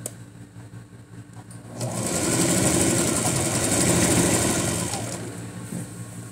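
Singer electric sewing machine stitching a satin ribbon onto a fabric hem. It starts about two seconds in, runs steadily for about three seconds, then eases down near the end.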